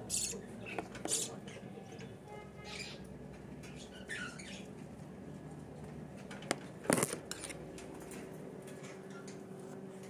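Budgerigars giving a few short, squeaky chirps scattered through, over a faint steady hum, with a sharp click about seven seconds in.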